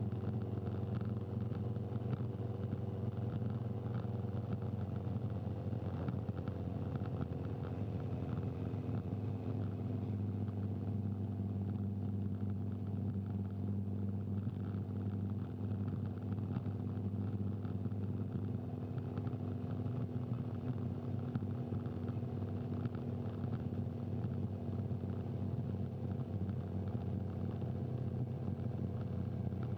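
Race camera motorcycle's engine running steadily at low speed, its pitch drifting a little up and down, over road noise.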